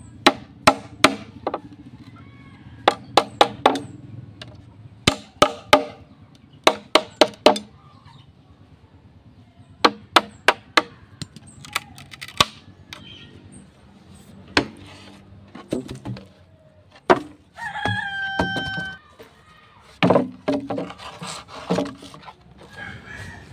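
Machete chopping a square notch into a dry bamboo pole: sharp knocks in quick clusters of three or four. A rooster crows once, a little over a second long, about two-thirds of the way through, then a few more chops follow.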